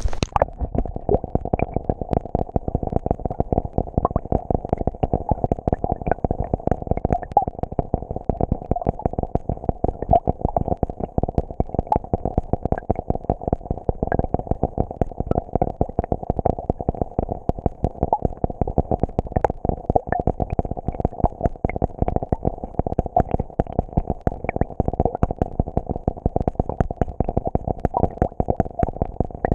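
Rain falling on a pool's surface, heard underwater through a GoPro's waterproof housing: a steady, muffled crackle of many small irregular ticks.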